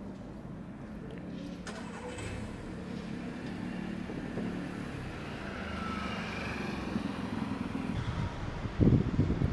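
A motor vehicle's engine running, slowly getting louder, over steady outdoor street noise. A sudden loud low rumble comes near the end.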